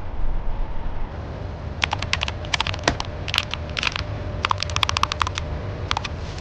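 Factory processing machinery running with a steady low hum, with quick runs of sharp clicks and clatter starting about two seconds in.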